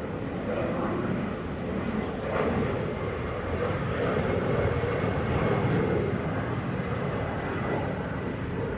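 Low, steady engine-like rumble that grows louder through the middle and eases off near the end, like a vehicle passing at a distance.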